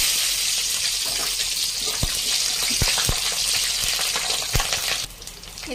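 Green chillies sizzling hard in hot oil in a kadai, a steady loud hiss that eases off about five seconds in, with a few light knocks along the way.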